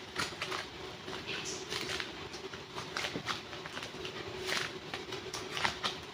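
Super clay and its packaging handled close to the microphone: irregular crackles and sharp little clicks, a few louder ones about a second and a half in and near the end, over a faint steady hum.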